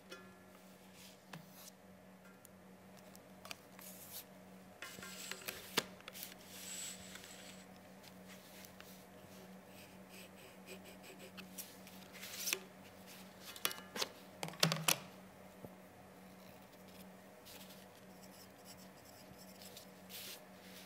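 Graphite pencil drawing on paper: scratchy strokes with a few louder taps and rustles of sheets being handled, over a faint steady hum.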